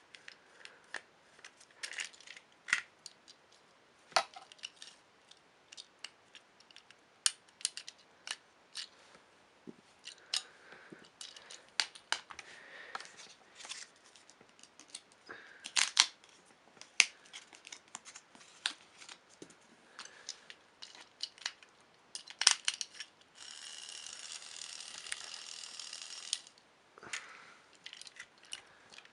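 Clicks, taps and rattles of a plastic Trackmaster toy engine being handled as batteries are fitted and its body pieces are snapped back together. About three-quarters of the way through, a steady whirring noise runs for about three seconds and then stops suddenly.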